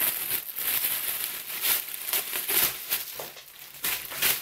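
Clear plastic packaging bag crinkling and crackling irregularly as hands pull it open and work it off the folded garment inside.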